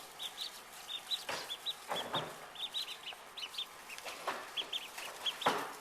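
Day-old Indian runner and Swedish blue ducklings peeping: many short, high peeps in quick succession, with a few soft knocks scattered among them.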